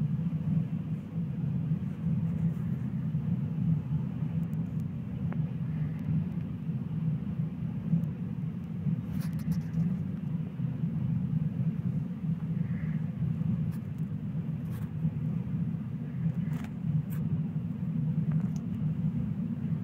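Freight train of tank wagons rolling past: a steady low rumble, with a few faint clicks now and then.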